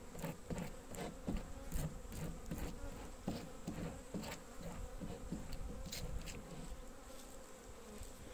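Honeybees buzzing steadily around an open hive full of frames, with scattered short, light clicks and knocks throughout.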